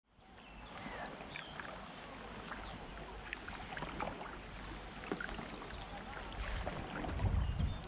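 Double-bladed paddle working the water beside an inflatable packraft on a calm river: small splashes, drips and light knocks, fading in at the start, with a low rumble swelling near the end.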